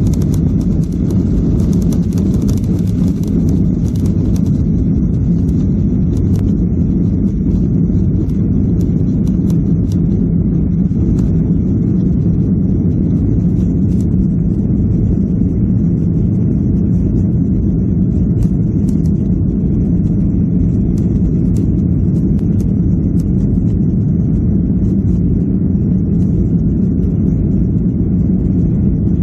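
Jet airliner's engines at takeoff thrust, heard from inside the cabin as a steady, loud low rumble through the takeoff run and initial climb. Rattling from the wheels on the runway is heard in the first few seconds and eases off once the aircraft is airborne.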